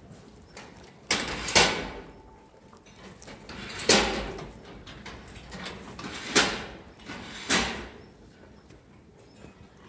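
Steel headlock feed barrier clanking as the cows shift their heads in it: five sharp bangs with a short ring, two close together about a second in, then single ones spread through the rest.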